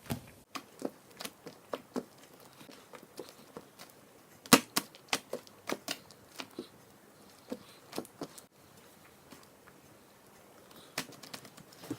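Sticky soap flake slime stretched and squeezed by hand, giving irregular sharp clicks and pops, with a cluster of louder pops about four and a half seconds in.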